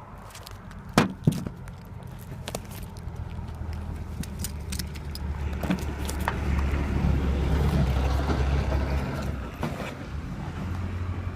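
A road vehicle's engine rumble builds up, is loudest about seven to nine seconds in, then drops away. Two sharp clicks come about a second in, with a few lighter clicks scattered through.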